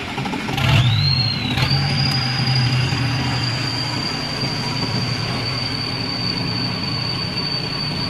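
Generator set's engine being started: it spins up with a rising whine over about a second, then catches and runs steadily, with a constant high whine above the low engine sound.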